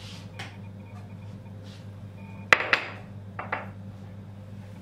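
A small ceramic bowl set down on a hard surface: one sharp clack about halfway through, a second right after, then two lighter knocks, over a steady low hum.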